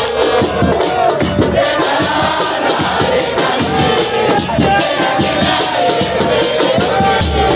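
Football supporters in the stands singing a chant together over a steady beat of bass drums.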